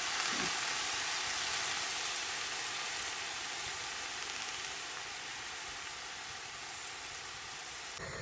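Spinach leaves sizzling in a hot pan: a steady hiss that slowly fades, cut off abruptly near the end.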